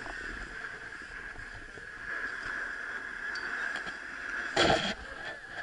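Snowboard sliding over packed snow, a steady hissing scrape mixed with wind rushing across the camera microphone. A short, louder burst of scraping noise comes about four and a half seconds in.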